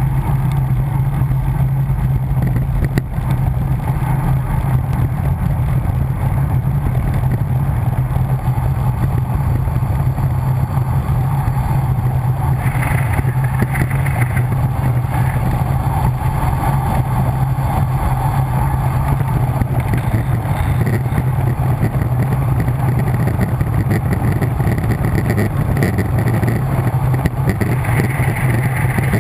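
Steady, loud wind rush over a bike-mounted camera's microphone on a fast road-bike descent, mixed with the hum of tyres on tarmac.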